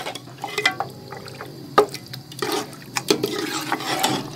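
Metal spoon stirring beef trotters as they fry in oil and masala in a cooking pot: irregular scrapes and knocks against the pot over the wet sizzle of the frying, with one sharp knock near the middle.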